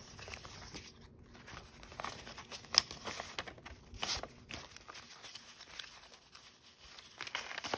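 A stack of paper dollar bills rustling and crinkling as the notes are fanned out and counted by hand, with one sharper snap a little under three seconds in.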